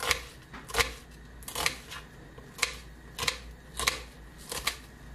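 Kitchen knife slicing a red onion on a wooden cutting board: about seven slow, separate cuts a little under a second apart, each ending in a light knock of the blade on the wood.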